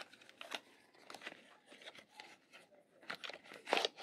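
Small paperboard charger box handled and slid open: the inner tray of a Samsung 25W USB-C adapter box scraping out of its sleeve, in scattered short scrapes and rustles, the loudest near the end.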